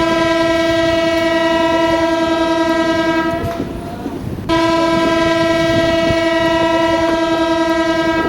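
Train horn sounding two long blasts on one steady pitch, with a gap of about a second between them, over the rumble of the moving train.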